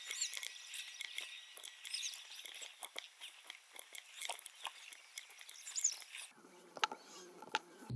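Soldering iron reflowing solder joints on a circuit board: the flux sizzles and crackles with many tiny high-pitched pops. After about six seconds the crackling gives way to a few sharper clicks.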